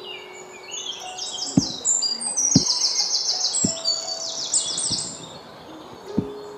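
Long wooden pestle pounding into a stone mortar, five dull thuds at about one a second, over loud, busy chirping bird song.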